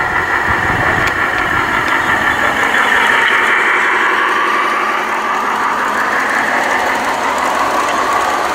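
O- and G-gauge model trains running on a layout: a steady whirring rattle of wheels on track and motors, with a whine that slowly rises and falls in pitch as the trains pass.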